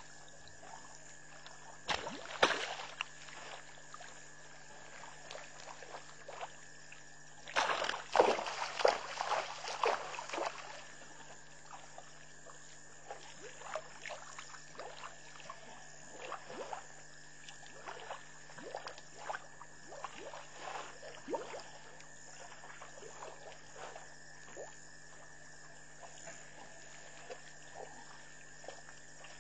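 Elephants drinking at a waterhole: water sloshing, splashing and pouring as trunks draw it up and let it go. The splashing is loudest about two seconds in and again from around eight to ten seconds, with smaller splashes through the rest.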